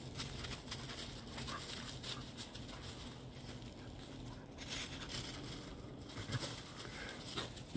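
A puppy and a larger dog playing on dry leaf litter: paws scuffling and crackling through the fallen leaves as they chase and wrestle, with a sharp click near the end.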